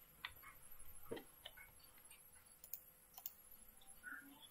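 A few faint, scattered computer mouse clicks over near silence.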